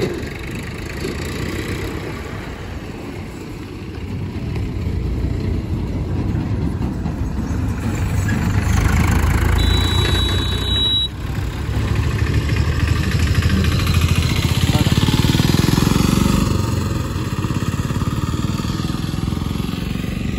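Motorcycle engine running close by, growing louder a few seconds in and easing off near the end. A short high beep sounds about ten seconds in.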